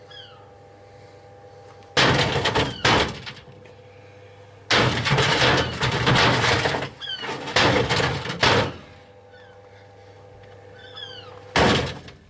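Tumble dryer with heavy objects loose in its drum, giving loud bouts of banging and clattering three times over a steady hum. Birds chirp in the quiet gaps between the bouts.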